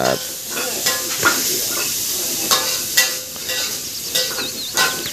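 Food sizzling in a wok over a wood fire, with a metal spatula stirring and scraping the pan in several short strokes.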